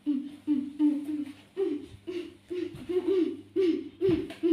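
A high, child-like voice making a quick run of short hooting, sung syllables, about two a second, some dipping in pitch, over a faint steady hum.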